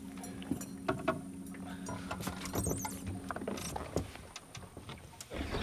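Faint steady mechanical hum that stops about three and a half seconds in, with scattered light clicks and knocks.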